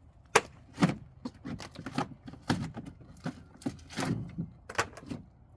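Irregular knocks, cracks and scrapes, about ten in a few seconds, of rotted wood and panelling being pried and pulled off a camper wall.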